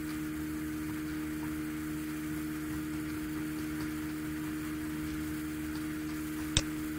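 Steady electrical hum with a constant tone over faint hiss, the recording's background noise; a single sharp click near the end.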